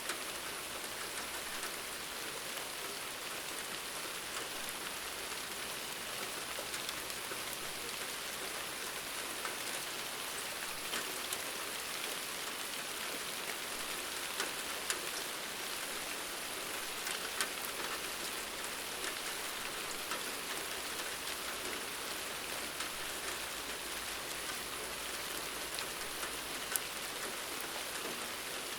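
Steady rain falling, an even hiss with scattered individual drop ticks, a few slightly sharper ones now and then.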